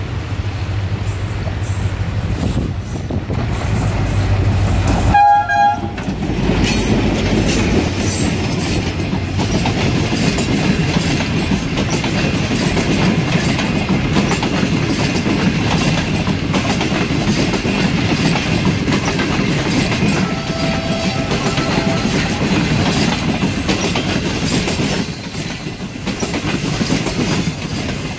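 Passenger train of Pakistan Railways passing close by behind an HGMU diesel locomotive. The locomotive drones as it approaches and gives one short horn blast about five seconds in. The coaches then roll past with a steady rumble and clickety-clack over the rail joints, and a fainter horn sounds about twenty seconds in.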